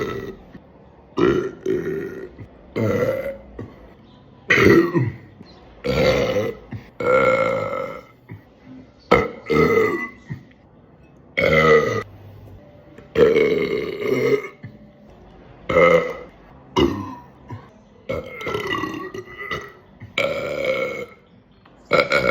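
A person's loud burps, one after another, about one every second or so, some short and some drawn out.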